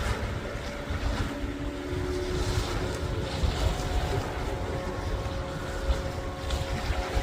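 Wind rumbling on the microphone, over the steady low drone of a distant motorboat engine holding several fixed tones.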